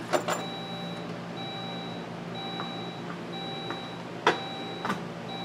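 Saab 9-3 Viggen's dashboard warning chime beeping about once a second, each beep about half a second long, with the ignition switched on and the driver's door open. A click comes near the start and a sharper click about four seconds in, over a steady low hum.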